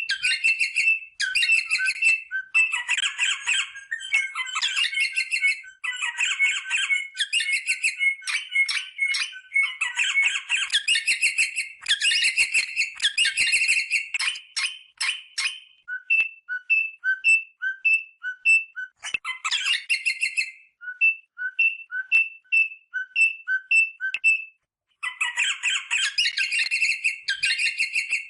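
Rosella parrot calling: rapid chattering, piping calls, then midway a run of short, clear piping notes repeated about twice a second, before the chattering comes back near the end.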